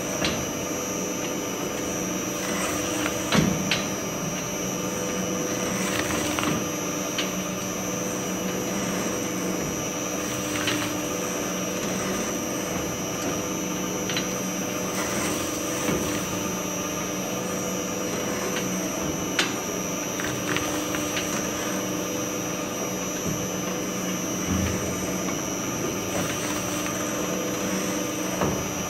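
Twin-shaft shredder running steadily with a constant motor hum while its blades grind up small toy balls, giving scattered short cracks and snaps; the loudest crack comes a few seconds in.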